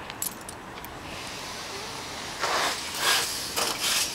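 Donkey sniffing and nuzzling right at the phone. A few soft clicks come early, then from about halfway several short breathy rushes of snuffling.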